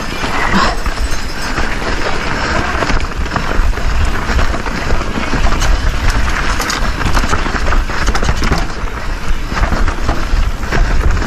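Mountain bike descending a rough dirt trail at speed: a steady rumble of wind buffeting the microphone, with the tyres on dirt and the bike rattling and clicking over bumps.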